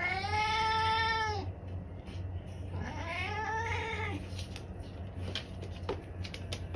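Cat yowling in long, drawn-out meows while a husky puppy pins it to the floor: one call ends about a second and a half in, and a second rises and falls a second later. A few small clicks follow.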